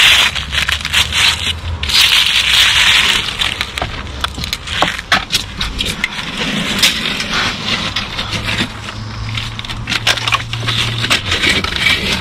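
A gloved hand scraping and crushing thick, flaking rust scale on a badly corroded old steel angle-iron lintel, crunching and crackling. It is densest in the first three seconds, then thins to scattered clicks and scrapes.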